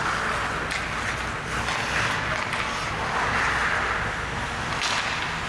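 Ice hockey play: skate blades scraping across the ice in swelling hisses, with a few sharp clicks of sticks and puck.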